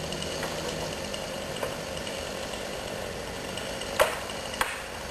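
Two-stroke chainsaw idling steadily, then near the end two sharp knocks a little over half a second apart.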